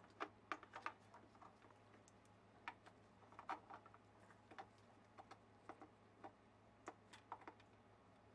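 Light, irregular clicks and taps of small metal parts, a toggle switch and volume pot on their wiring harness, knocking against the wooden body of a semi-hollow guitar as they are worked in through the f-hole. A faint steady hum lies underneath.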